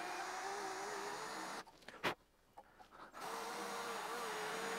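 Hand-held electric drill boring into a broken steel bolt, its motor running at a steady pitch. It stops about a second and a half in, with a click, and starts again about three seconds in.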